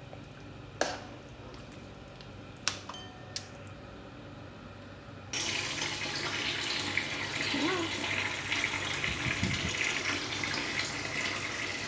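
A ladle clinks sharply against a serving bowl three times while soup is served. About five seconds in, a steady rushing hiss, like a running tap, starts abruptly and carries on.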